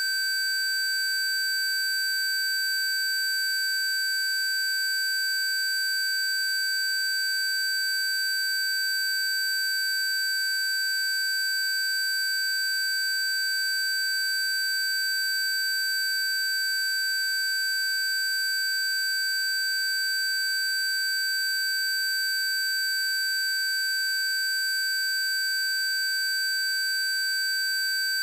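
Synthesized PC Zapper frequency tones: one steady high-pitched tone with several fainter, higher steady tones layered over it, unchanging throughout.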